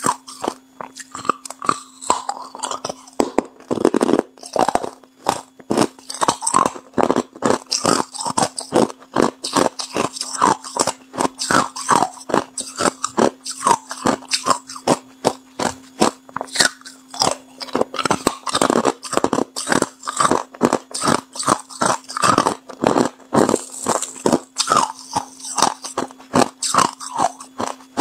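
Chunks of hard clear ice bitten and crunched between the teeth: a rapid, continuous run of sharp cracks, with heavier bursts of crunching every few seconds.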